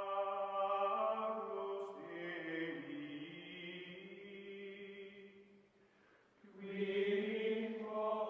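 Chant-like choral music holding long, sustained chords that shift a few times, fading down about six seconds in and swelling back up shortly after.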